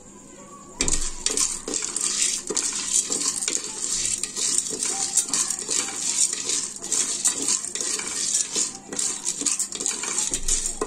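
A wooden spatula stirring dry popcorn kernels in oil and salt in a metal pressure cooker pot, the hard kernels rattling and scraping against the pan. It starts about a second in and goes on as a dense stream of clicks.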